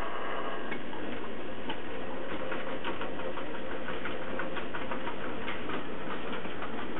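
Model train running on a Trix Express layout: a steady mechanical hum with many quick, irregular clicks of wheels over the rail joints, which grow denser about two seconds in.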